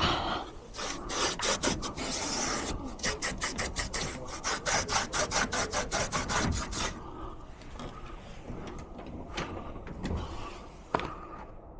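Rapid rubbing strokes, about five a second, that stop about seven seconds in. A few scattered light clicks follow.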